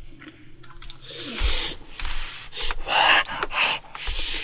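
Close-up mouth sounds of a person eating: about four loud, hissing in-drawn slurps, coming in short bursts.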